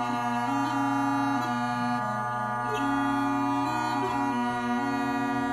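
Bagpipe playing a slow tune: the chanter steps between held notes over a steady, unbroken drone.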